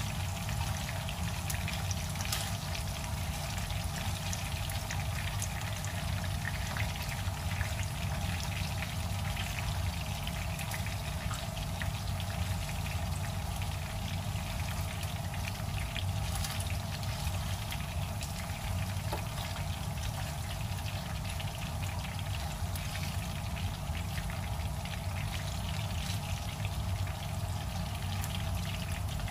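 Marinated fish-head pieces frying in oil in a pan: a steady sizzle with scattered small crackles, over a low steady hum.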